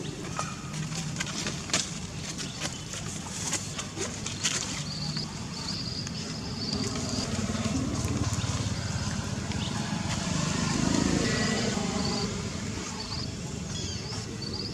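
Outdoor ambience: short high bird-like chirps repeating, scattered sharp clicks and rustles in the first few seconds, and a low rumble that swells about eleven seconds in and fades.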